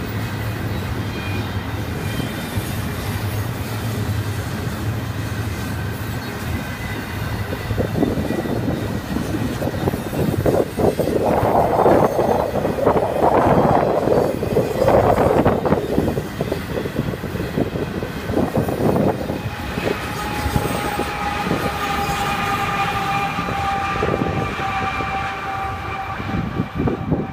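Double-stack intermodal freight train rolling past: a steady rumble of wheels on rail, with louder clattering from about ten to sixteen seconds in. About twenty seconds in, a few steady high tones set in and hold.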